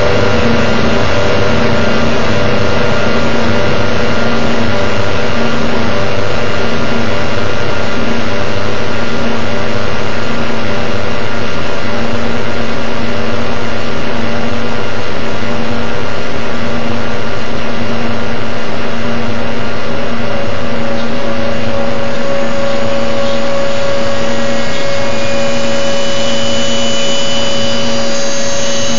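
Harsh noise: a loud, unbroken wall of distorted electronic noise with steady droning tones underneath. Near the end, higher whining tones join in.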